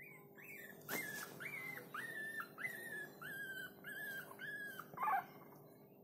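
Newborn miniature pinscher puppy crying: a regular run of short high-pitched squeaks, about two a second, ending in a louder falling cry, with a sharp click about a second in.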